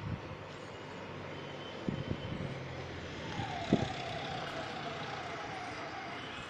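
Street noise with a motor vehicle passing, its engine pitch falling slowly, and a few sharp thumps, the loudest about halfway through.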